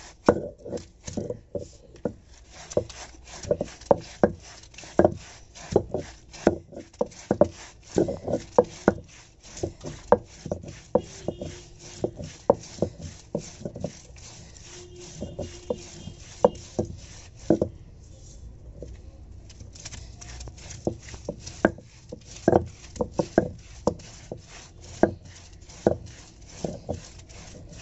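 Stone roller of an ammi grinding stone worked back and forth over fresh grass on a stone slab, making a quick run of knocks and grinding scrapes, about two or three a second. There is a short pause about two-thirds of the way through.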